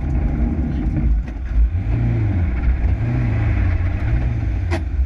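Lancia Delta Integrale Group A rally car's turbocharged four-cylinder engine heard from on board, driving hard with the revs swelling up and down in several short rises. A single sharp knock comes near the end.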